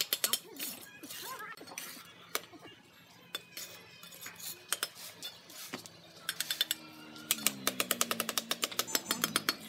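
Steel brick trowel clinking and tapping on clay bricks and scraping wet mortar as bricks are laid, ending in a quick run of taps, several a second, as a brick is knocked down into its mortar bed.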